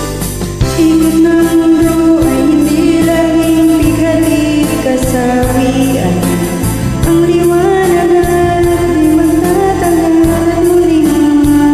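A woman singing a slow song along with a karaoke backing track, holding long, wavering notes over the accompaniment.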